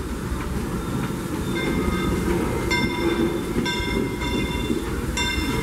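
Disneyland Railroad narrow-gauge steam train passing with a steady low rumble. From about a second and a half in, several high squealing tones start and stop sharply about once a second, typical of wheel flanges squealing on a curve.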